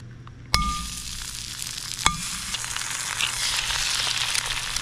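Food frying in a hot pan over a campfire. A metal clink about half a second in as the sizzle starts, a second clink about two seconds in, then a steady sizzle that grows slightly louder.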